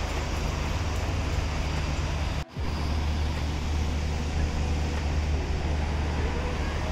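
Street traffic: cars driving past on a city road, a steady low rumble with road noise, which cuts out for a moment about two and a half seconds in.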